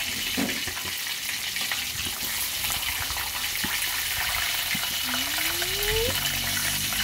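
A whole red grouper shallow-frying in hot oil in a wok: a steady, dense crackling sizzle, while a metal spatula lifts the fish in the oil.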